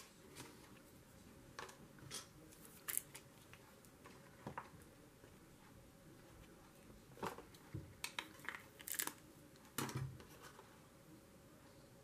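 Faint handling of paper cut-outs and a glue stick: scattered soft rustles and small taps, busier in the second half.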